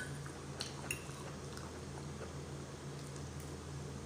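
A few light clinks of cutlery against a plate in the first couple of seconds, over a steady low hum.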